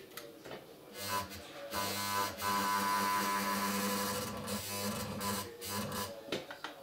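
Kenmore Ultra Stitch 12 sewing machine's electric motor running with a steady hum for about five seconds, starting about a second in and stopping near the end, with a click or two around the start and stop.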